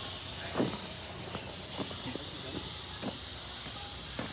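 A steady high-pitched hiss starts about a second and a half in and holds, over scattered light clicks and taps.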